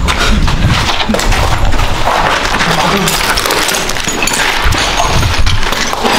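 Hurried footsteps scuffing and crunching on gritty, debris-strewn concrete stairs, heard amid dense crackling with many quick knocks and clicks.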